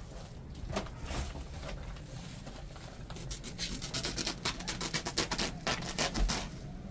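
Short scraping and tapping strokes, sparse at first, then coming rapidly and irregularly, several a second, from about three seconds in.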